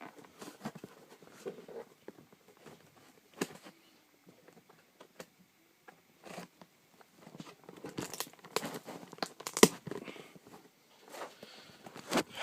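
Hard drive retail box being pried and torn open by hand: scattered rustling, crinkling and tearing of the packaging, with a busier flurry of louder handling noises past the middle.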